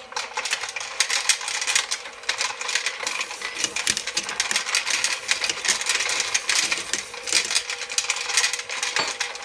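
Double Alpha Mr. Bullet Feeder running: a rapid, continuous metallic clatter of bullets tumbling and clinking in the rotating hopper, over a steady motor hum.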